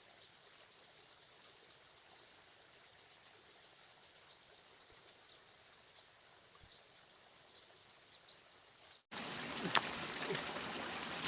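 Faint outdoor ambience with scattered short, high chirps, then, about nine seconds in, a sudden jump to the louder steady rush of flowing river water with a few small clicks.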